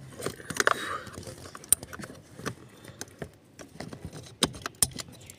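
Scattered sharp clicks and light metallic knocks of parts and tools being handled around the seat rails and wiring. The louder ones come about a second and a half in and twice near the end.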